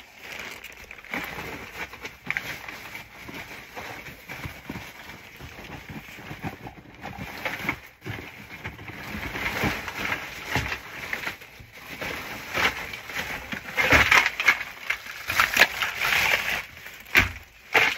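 Plastic packaging crinkling and rustling as hands rummage through bagged supplies: an irregular stream of crackles, louder near the end as a clear plastic bag is handled.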